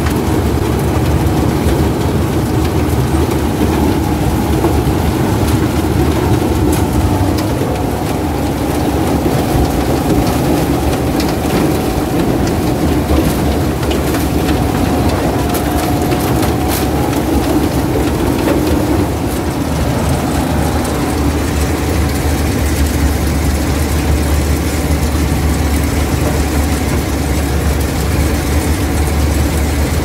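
Malkit self-propelled combine harvester running steadily under load while cutting and threshing maize: loud, constant machine noise with occasional faint clicks. Its low hum grows stronger about two-thirds of the way through.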